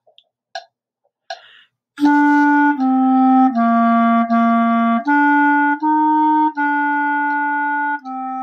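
A few metronome count-off clicks, then a B-flat soprano clarinet playing a slow sight-reading line: separate held notes about one per beat, stepping up and down in pitch, with a longer held note near the end.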